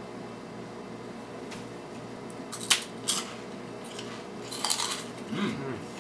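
A few sharp clinks and a short clatter of dishes and utensils being handled, over a steady low background hum.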